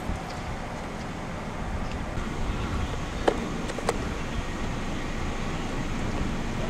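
Steady wind rumbling on the camera microphone in the storm's gusty winds, with two sharp knocks about three seconds in.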